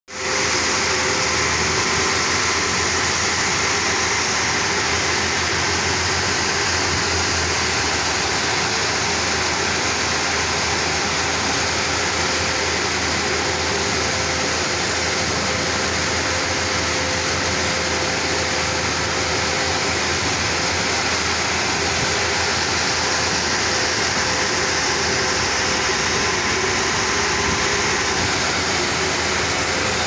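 Heavy diesel machinery running steadily at a constant speed, a continuous mechanical drone with a faint steady whine through it.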